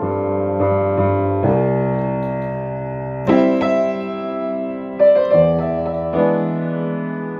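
Grand piano played slowly: held chords, each ringing on until the next, changing every second or two, with louder new chords struck about three seconds in and again around five seconds in.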